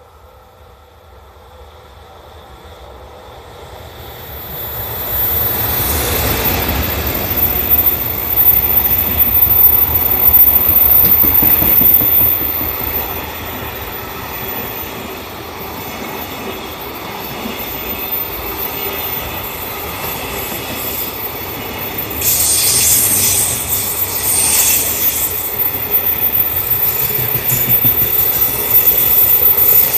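Freight train hauled by a JR Freight EF210-300 electric locomotive approaching and passing. It swells from faint to loud over the first five or six seconds, then the long run of wagons keeps up a steady rumble and wheel clatter on the rails. A high-pitched wheel squeal rises over it about two-thirds of the way through.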